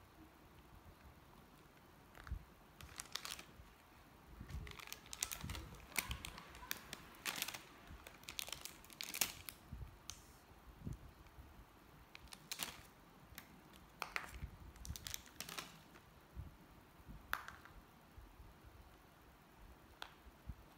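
A foil snack packet crinkling and rustling in a toddler's hands, in irregular bursts with small clicks.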